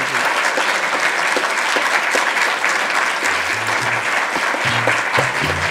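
Audience applauding: steady, dense clapping from a seated crowd in an auditorium.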